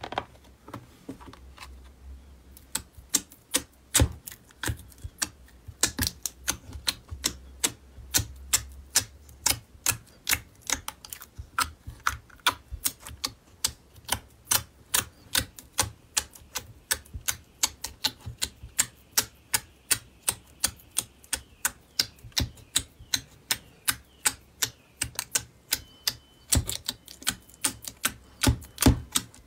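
Fingertips poking and pressing glossy slime in a plastic compartment tray, making sharp, sticky clicking pops about three a second.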